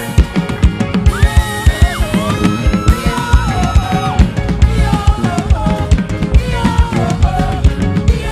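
Band music with a drum kit playing a busy beat under a lead instrument's melody of held notes that slide between pitches.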